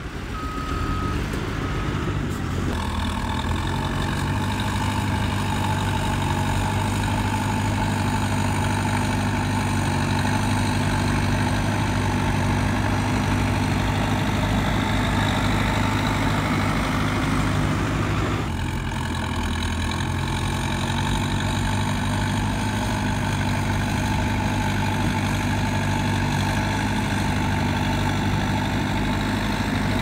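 Heavy diesel engine of earthmoving machinery running steadily under work, with two short high beeps near the start. The engine note dips and shifts briefly about two-thirds of the way in.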